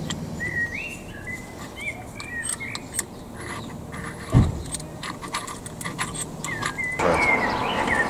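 Light metallic clinks and taps as a Citroën C4's front brake caliper and its parts are handled by hand, with one dull thump about four seconds in. Birds chirp in the background.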